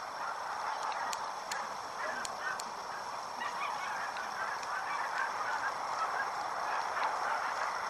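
A flock of birds calling together, many short overlapping calls forming a continuous chatter, with a few faint clicks in the first few seconds.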